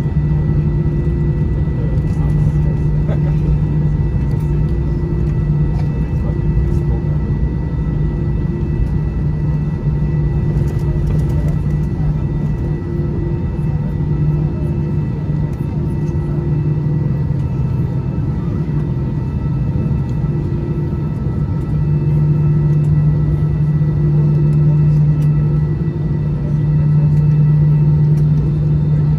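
Airbus A320-214 cabin noise while taxiing after landing: the steady low hum and rumble of its CFM56 engines at idle, with thin steady tones above. It grows a little louder twice in the last third.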